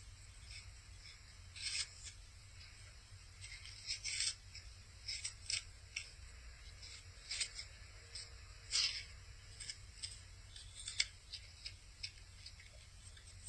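A dog biting into and chewing a raw apple: irregular crisp crunches, about one a second, over a steady low hum.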